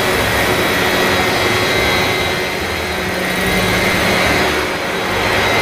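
Helicopter sound effect: a loud, steady rush of engine and rotor noise with a steady high whine.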